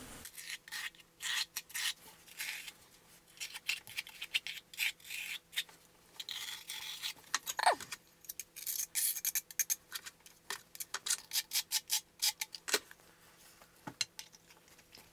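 Steel notched trowel scraping and combing thinset mortar in a run of short, uneven strokes, with one brief falling squeak about halfway through.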